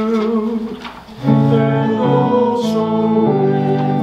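Church service music: a sung phrase with accompaniment ends about a second in. Held instrumental chords follow, changing every half second to second.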